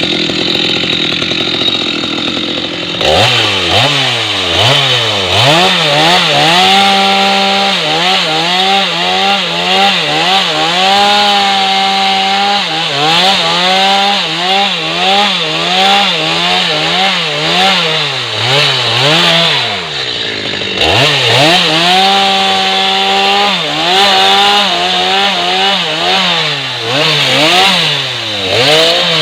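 Stihl MS 250 two-stroke chainsaw cutting wood, its engine speed rising and falling over and over as the chain loads and frees in the cut, with a deep drop and recovery about twenty seconds in.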